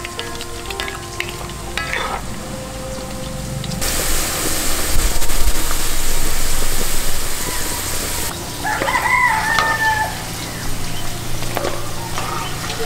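Kikiam deep-frying in oil in a cast-iron pot, stirred with a wooden spoon, with light clicks at first and then a loud, even sizzle for about four seconds in the middle. A rooster crows once about nine seconds in.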